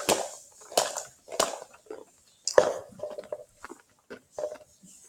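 Stiff plastic toy packaging crackling and snapping in a string of irregular sharp cracks as it is worked open.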